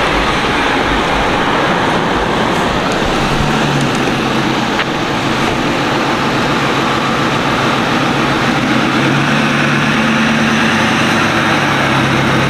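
Lifted trucks on oversized off-road tires driving slowly past: a steady noise of engines and tires, with a low engine hum that comes and goes from about three seconds in.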